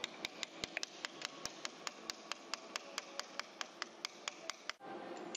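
Rapid, evenly spaced sharp taps, about four or five a second, from hand work on a large generator stator. They stop abruptly near the end.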